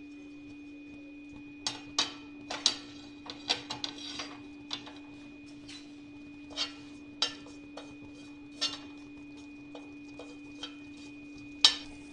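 Mustard seeds and curry leaves spluttering in hot ghee on an iron tawa: irregular sharp pops and crackles, scattered and uneven, with the loudest pop near the end. A steady low hum runs underneath.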